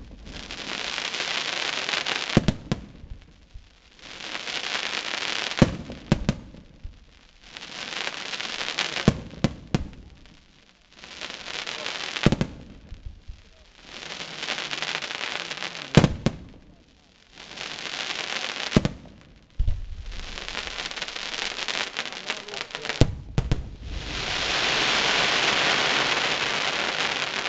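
Aerial firework shells bursting in succession, a shell every few seconds: each sharp bang is followed by a second or two of hissing, crackling noise from the spreading stars. Near the end a longer, denser wash of crackle builds up.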